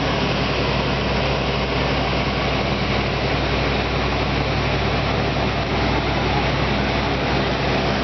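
Heavy vehicle engine idling steadily, a constant low hum under street noise.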